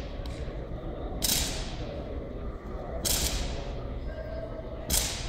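Three sharp slaps from hands striking drill rifles during silent rifle drill, about two seconds apart, each echoing briefly in a large hall.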